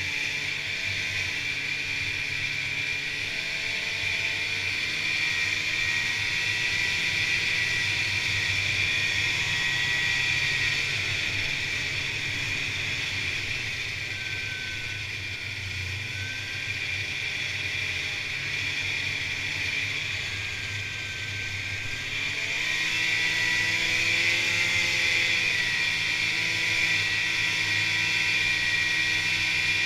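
Polaris Indy snowmobile's two-stroke engine and track running at trail speed with a steady high whine. It eases off about twenty seconds in and picks up speed again a couple of seconds later.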